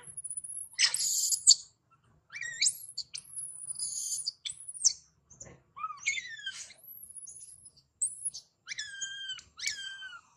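Infant long-tailed macaque screaming: a string of shrill squeals, several falling in pitch in quick series toward the end.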